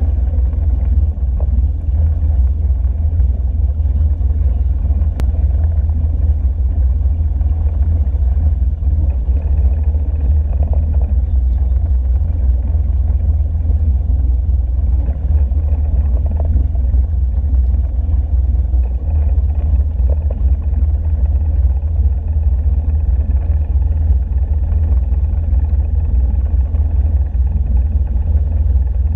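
Wakesurf boat's engine running with a steady low rumble, mixed with water wash.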